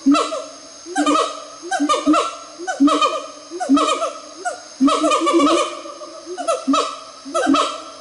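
Siamang gibbon calling: a series of loud, short pitched calls about once a second, with a quicker run of notes about five seconds in.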